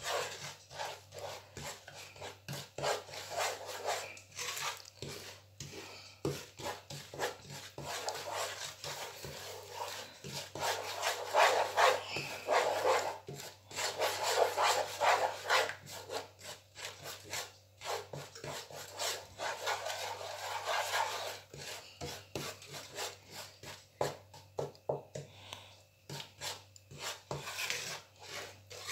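A wooden spatula scraping and rubbing around a nonstick frying pan in quick, irregular strokes, stirring sugar as it melts into caramel. The scraping is loudest in the middle.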